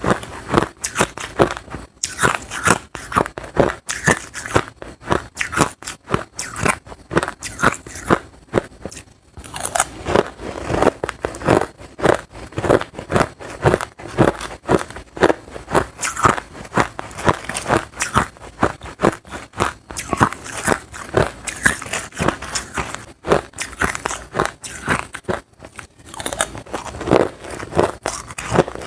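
Hard crushed ice being bitten and chewed close to the microphone: a dense, uneven run of loud crunches, several a second, with a short pause partway through.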